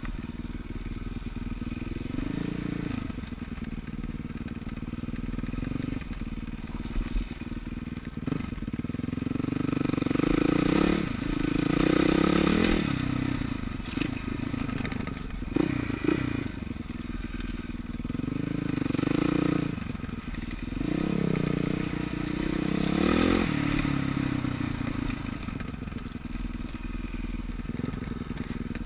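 KTM LC4 400 SC's single-cylinder four-stroke engine running under a rider, its pitch rising and falling again and again as the throttle is opened and closed. A few sharp knocks cut through around the middle.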